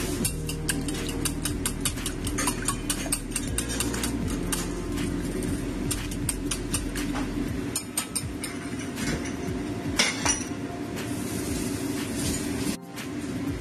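Wire whisk beating raw eggs in a glass bowl: rapid, irregular clinks of the metal wires against the glass, over a steady low hum.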